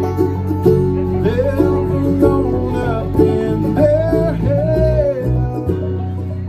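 Bluegrass band playing live: rolling banjo, strummed acoustic guitar, mandolin and electric bass, with a voice singing a line over it from about a second in until about five seconds in.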